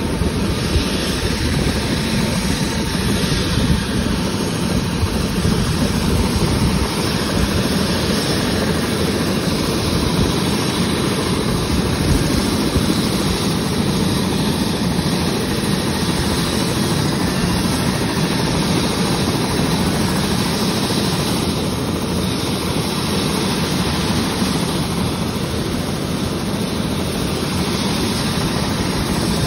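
Light helicopter's turbine engine running at ground idle: a steady, unbroken rushing drone with a faint thin whine held at one pitch.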